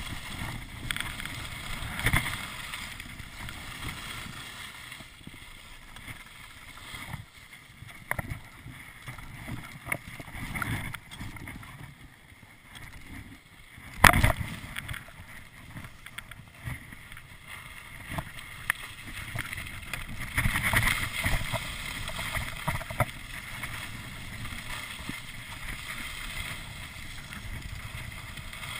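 Skis sliding and scraping over packed snow during a downhill run, with wind rushing over the camera's microphone in uneven swells. About halfway through comes one sharp, loud knock.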